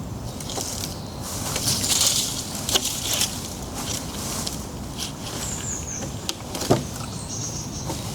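Rustling and handling noise with scattered sharp clicks and knocks over a low rumble, plus short high chirps about five and a half and seven seconds in.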